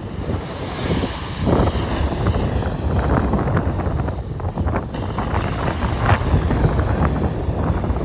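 Wind buffeting the microphone in irregular gusts, over small ocean waves breaking and washing up a sandy beach.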